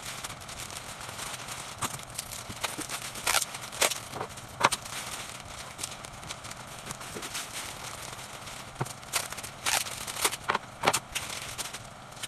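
Bouquet wrapping paper crinkling and crackling as a florist handles and folds the sheets around a bouquet. It comes as irregular sharp crackles over a steady hiss, heaviest in two bunches, about a third of the way in and again near three quarters.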